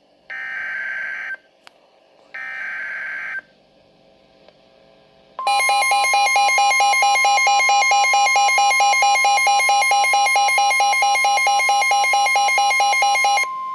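Emergency Alert System warning tones: two short buzzy bursts of SAME header data, then after a pause about eight seconds of loud attention signal. The attention signal is a steady tone under a rapidly pulsing alarm tone, which stops near the end, leaving the steady tone alone for a moment.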